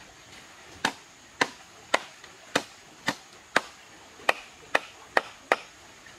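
Knife chopping a plucked chicken on a wooden chopping block: about ten sharp chops, roughly two a second.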